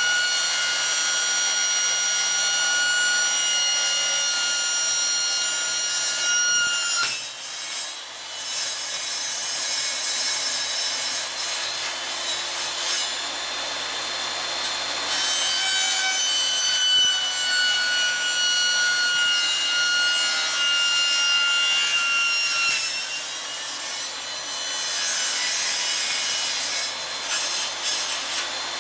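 A power tool working sheet metal: a steady high whine over a harsh rasping noise. The whine's pitch dips as it stops about seven seconds in, it starts again about fifteen seconds in, and it dips and stops again about twenty-three seconds in while the rasping goes on.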